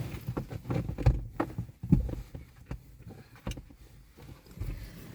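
Car driving, heard from inside the cabin: a low road rumble with scattered knocks and a couple of heavier thumps, as from bumps in the road.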